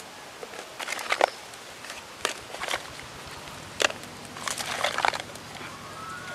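Dry tamarind pods being handled, their brittle shells cracking and clicking against each other in short clusters of sharp crackles, over a steady background hiss.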